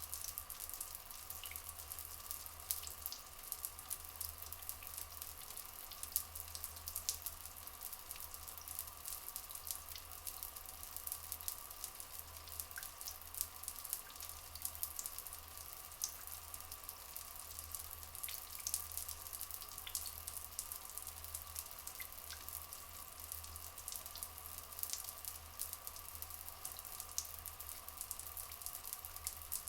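Soft, steady trickle of flowing water with many small drips and splashes, under a faint steady high tone.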